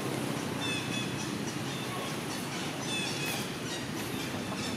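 Outdoor ambience: a steady low background rumble with short, high, slightly falling chirps scattered through it every second or so.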